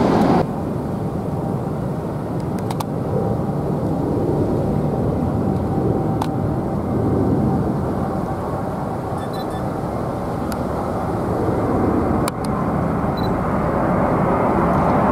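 Steady jet-engine rumble of a twin-engine wide-body airliner on final approach, growing louder over the last few seconds as it comes closer.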